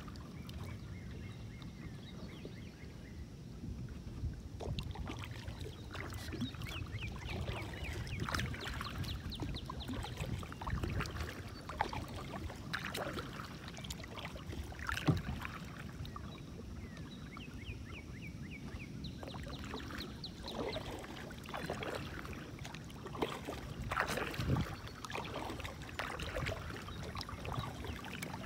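Kayak paddle dipping and pulling through calm water, with irregular splashes and drips, over a low steady rumble.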